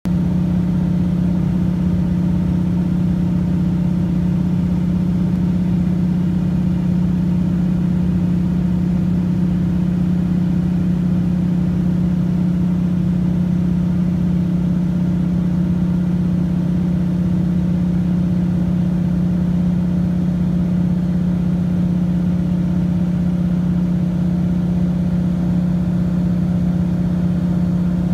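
Floatplane's propeller engine in cruise, heard from inside the cabin: a loud, unchanging drone with one strong low hum.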